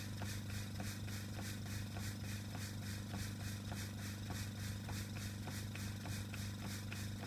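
Stuart No. 9 single-cylinder double-acting model steam engine running steadily on compressed air, its exhaust beating rapidly and evenly at about six a second, over the steady hum of the airbrush compressor that feeds it.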